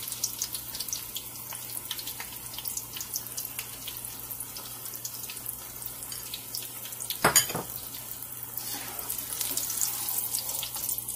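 Vegetable slices and green chillies deep-frying in hot oil in a wok: a steady sizzle with many small crackles and pops. One louder clack about seven seconds in.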